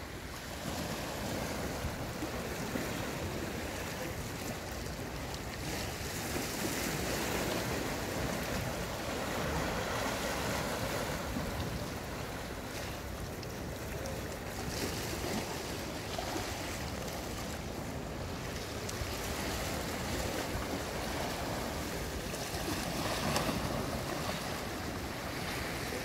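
Small sea waves washing and lapping against a concrete seawall and breakwater blocks: a continuous surf wash that swells and eases every few seconds. Wind rumbles on the microphone underneath.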